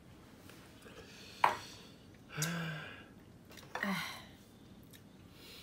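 A single sharp tap about a second and a half in, then two short wordless vocal sounds a second or so apart, like sighs or a low 'mm'.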